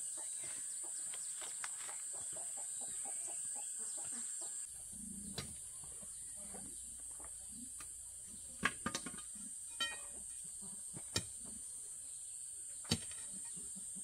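A steady high insect drone with scattered sharp clicks and knocks and a few short low calls.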